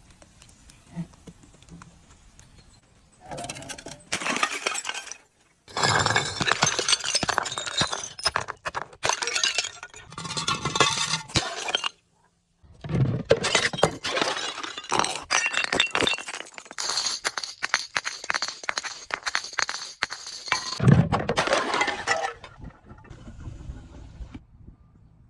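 Glass bottles being crushed and shattering: dense crunching with many sharp cracks and tinkling shards, starting about three seconds in and breaking off once for a moment about twelve seconds in.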